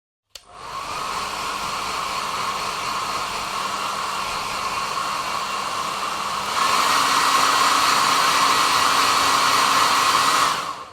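Hair dryer switched on with a click, running with a steady whir and whine, then stepping up to a louder, higher speed about six and a half seconds in before being switched off near the end.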